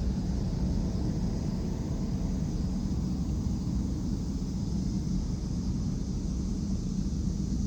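Steady low rumble of a long CSX mixed freight train, with no horn sounding.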